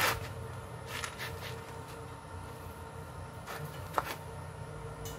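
Stick-welding arc from a Powerhouse 200-amp portable welder crackling in short bursts at the start and again about a second in, over a steady electrical hum. A single sharp click comes about four seconds in.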